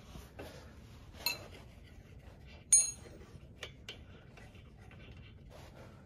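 Small metal wrench clinking on the steel bowl drain bolt of a lawn mower carburetor: a light ringing clink about a second in, a louder ringing clink near three seconds, then a few soft ticks.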